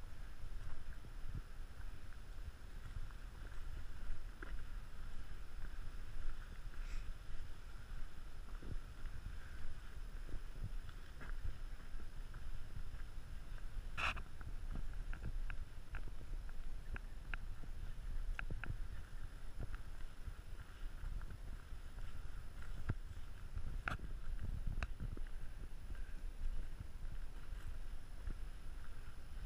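Low rumble of wind and handling on a hiker's camera microphone, with light footsteps on a dirt trail, about one and a half a second through the middle stretch, and a sharper click about halfway.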